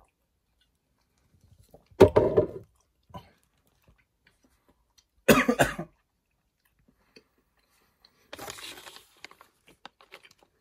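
A person coughing hard twice, about three seconds apart, then a brief crinkle of a plastic snack bag near the end.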